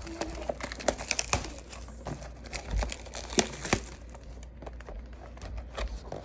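Plastic wrapping being crinkled in the hands, a dense run of sharp crackles over the first four seconds or so, sparser after that.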